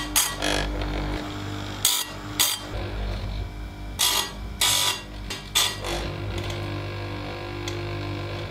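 Electric chainsaw chain grinder running with a steady hum, its wheel touching the .404 chain's teeth in short, sharp grinding bursts about eight times, one light pass per tooth.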